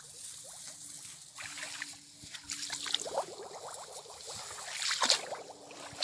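Shallow water in a flooded rice paddy sloshing and trickling in uneven splashes, loudest about five seconds in.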